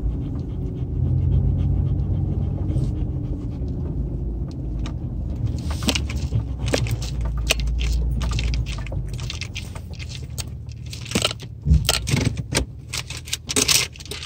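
A car driving slowly over a rough dirt track, heard from inside the cabin: a low engine and road rumble that eases after about nine seconds. From about six seconds in, quick irregular clicking and jangling rattles come through, thickest near the end.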